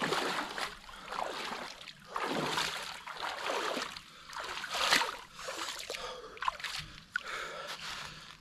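Lake water splashing and sloshing in a run of surges about once a second, as a person swims.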